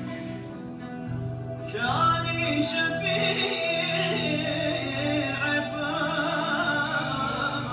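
Male choir singing an ilahi (Turkish Islamic hymn) with violin accompaniment. A softer instrumental passage gives way to the full choir, which comes in loudly about two seconds in.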